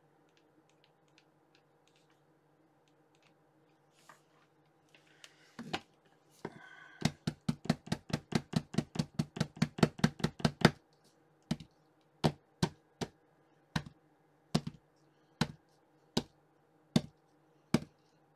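A silicone mold full of freshly poured hot glue being tapped and patted against the desk so the glue settles and its back flattens: a fast run of light knocks, about seven a second for several seconds, then single taps slowing to about one a second.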